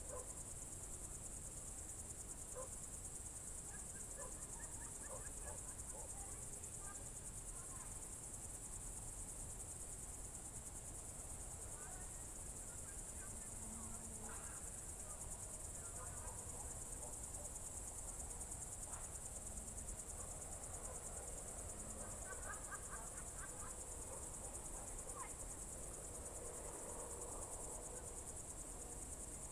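Crickets trilling in a steady, unbroken high-pitched chorus, with faint short calls scattered underneath.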